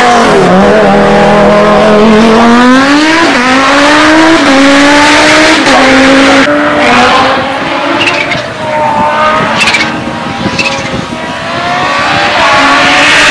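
Audi S1 Quattro replica race car's turbocharged five-cylinder engine accelerating hard up through the gears. Its pitch climbs and drops back at each upshift, and it fades as the car pulls away, with a few sharp pops around 10 s in. Engine noise rises again near the end.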